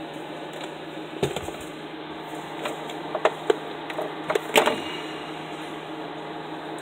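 Clicks and knocks of a toaster's power plug and cord being handled and pushed into a wall socket, a scattering of separate clicks with the loudest about four and a half seconds in.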